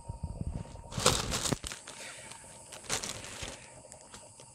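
Clear plastic bag crinkling and rustling as a cat moves inside it, in bursts about a second in and again near three seconds, with soft low knocks at the start.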